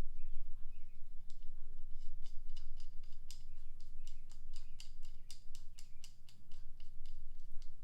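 Repeated sharp metallic clicks, two to four a second, as the tire valve stem tool is worked to pull a new valve stem into the wheel's rim hole. A steady low hum runs underneath.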